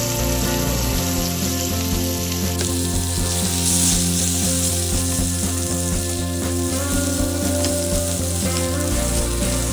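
Sliced potato sticks sizzling as they fry in oil in a pan while a flat spatula turns them. The sizzle grows louder about three seconds in, over background music with steady sustained notes.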